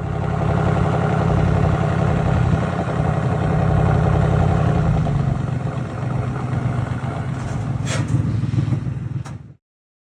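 Ford Mustang Mach 1's built Coyote 5.0 V8 running loud and fairly steady, with two sharp cracks near the end before the sound cuts off suddenly.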